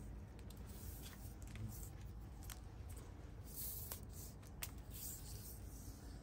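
Faint rustling of embroidered cotton silk net fabric being handled, with a few soft clicks scattered through.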